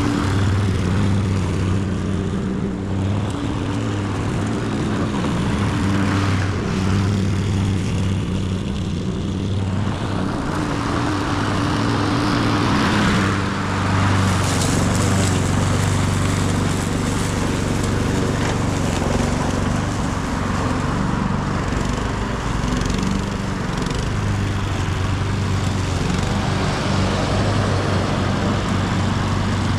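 Petrol walk-behind lawn mower running steadily while cutting grass, a constant engine hum.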